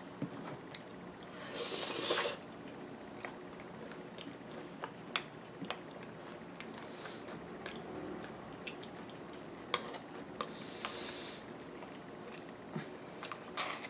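Close-up eating sounds of yogurt and granola: chewing and crunching, with scattered clicks of a metal spoon against the bowl. A louder rush of noise comes about two seconds in, and a softer one near eleven seconds.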